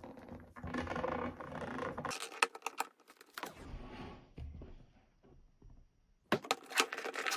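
Fingers tapping and scratching on a cardboard gift box while prying at its lid. Rustling at first, a run of quick clicks about two and a half seconds in, a nearly quiet stretch, then more clicks near the end.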